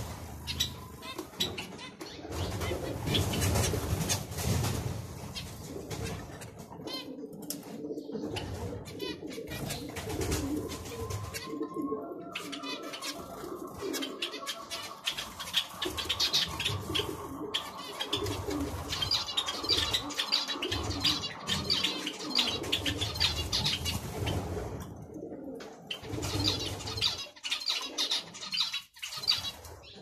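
Zebra finches calling with quick high chirps while they feed, over repeated low cooing of pigeons.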